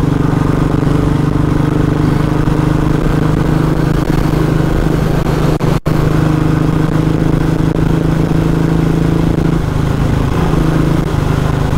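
Motorcycle engine running steadily at cruising speed, with road and wind noise. The sound cuts out for an instant about six seconds in.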